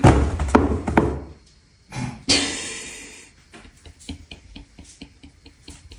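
Toilet paper rolls knocked off a stacked wall, falling and bouncing on a tile floor: a heavy thud with several knocks in the first second and a half, another clatter about two seconds in, then light scattered ticks as they roll and settle.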